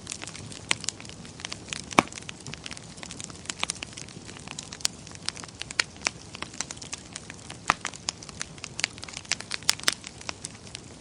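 Fire in a fireplace crackling: irregular sharp pops over a steady hiss, with one loud pop about two seconds in.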